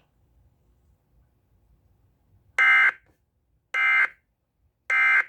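Three short bursts of Emergency Alert System digital data tones: the SAME end-of-message signal that closes the warning broadcast. They start about two and a half seconds in, each a brief two-tone warble, about a second apart.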